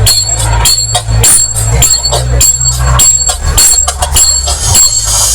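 Loud DJ dance music through a large sound system, with heavy held bass notes and quick percussion hits several times a second.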